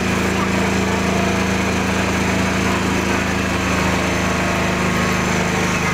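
Small engine of an open passenger cart running steadily as it drives along, with a constant rattling chug.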